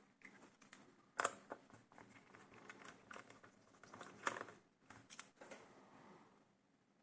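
Light clicks and rustles of hands working on a laptop's plastic case, with two sharper clicks, one about a second in and one about four seconds in.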